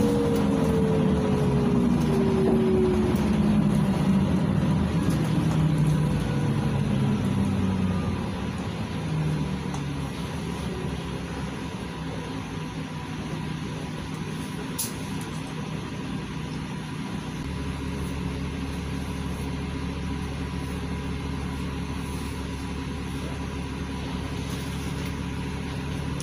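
Inside a LiAZ 5292.67 city bus with its YaMZ-53624 engine and ZF automatic gearbox: the engine and drivetrain note falls in pitch as the bus slows over the first several seconds. It then goes quieter and, about two-thirds of the way through, settles into a steady low hum.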